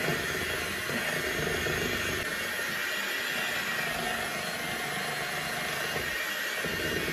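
Electric hand mixer running steadily at a constant speed, its beaters whipping cream cheese and melted butter into a fluffy frosting.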